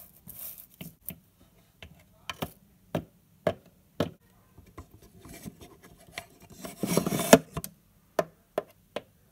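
Hands handling a plastic model horse and its tack in a wooden toy stable: scattered light clicks and taps, with a louder rubbing rustle about seven seconds in.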